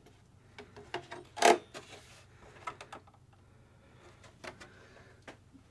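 Light handling sounds of a plastic RC truck body shell being turned in the hands: scattered soft clicks and taps, with one louder click about one and a half seconds in.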